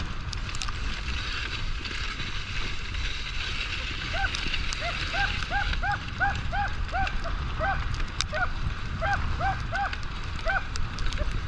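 A harnessed race dog yipping, a run of short rising-and-falling yelps about two or three a second starting about four seconds in, over a steady rush of wind and motion noise.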